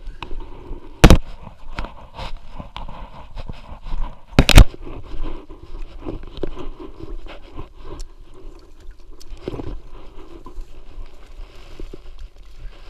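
Close handling noise of a plastic tub carried right against the camera: continuous scraping and rustling with many small knocks, and two loud thumps, about a second in and about four and a half seconds in. Near the end, footsteps through dry grass.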